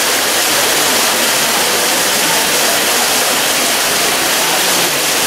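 Steady, loud rushing noise with no breaks or strokes, like falling water.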